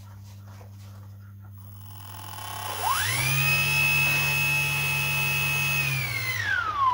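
Small brushless electric motor of a model Spitfire spinning its propeller at part throttle: a whine that rises quickly about three seconds in, holds steady for about three seconds, then falls away in pitch near the end as the throttle is closed.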